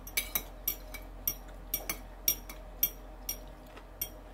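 A metal spoon clinking against a ceramic bowl: about ten light, irregular clinks as it works through the food.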